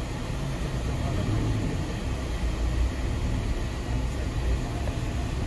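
A passenger van's engine and road noise heard from inside the cabin as it drives in traffic: a steady low rumble.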